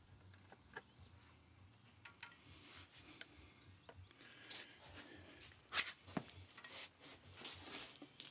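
Gloved hands working a flexible curve ruler against square steel tubing on concrete: faint rubbing and scraping with scattered light clicks and taps, the loudest a brief scrape just before six seconds in.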